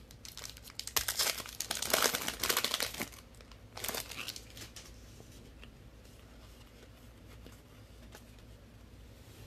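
A trading card pack's wrapper being torn open and crinkled, a dense crackle for the first three seconds with a shorter burst near four seconds, then only faint handling of the cards.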